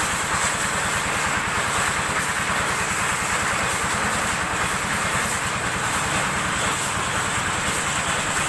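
Engine of a homemade helicopter running steadily, with a rapid even rattle and a hissing whir over it, during a test run of its engine and rotor.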